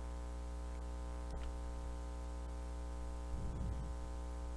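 Steady electrical mains hum with a stack of overtones, picked up by the recording setup, with a faint click about a second and a half in.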